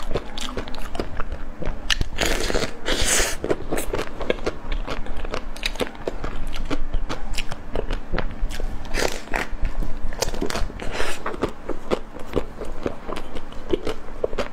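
Close-miked mukbang eating: a green mango dessert being bitten into and chewed, a steady stream of small mouth clicks and smacks. Louder bites come about two seconds in and again around nine to eleven seconds.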